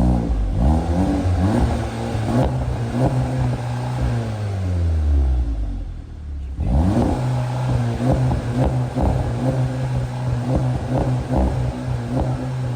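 Exhaust of a VW Golf Mk7 GTI's 2.0-litre turbocharged four-cylinder with the resonator deleted, being revved. The revs jump at the start and sink slowly over about six seconds, then jump again and are held steady.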